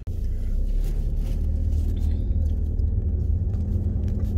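Car being driven, heard from inside the cabin: a steady low rumble of engine and road noise.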